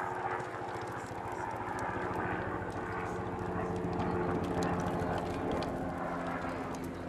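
A steady engine drone with a low hum, getting a little louder around the middle and easing off toward the end.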